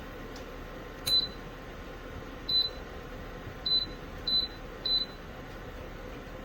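Electronic control of a MORENTO 1500 W space heater beeping five times, short high beeps, the last three in quick succession, as its buttons are pressed, over the steady hum of its running fan.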